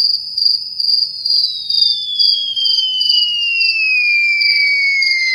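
Comedy sound effect of crickets chirping in a steady pulsing rhythm. From about a second in, a whistle slides slowly down in pitch, and a fainter tone glides upward beneath it.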